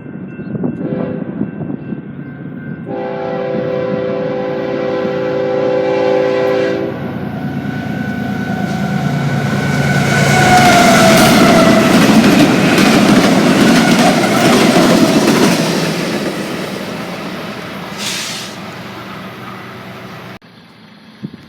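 Six BNSF diesel locomotives running light with no train: the air horn sounds a steady chord for about four seconds, then the engines pass close with a loud rush of engine noise and wheel clatter, their pitch dropping as they go by. The sound cuts off abruptly near the end.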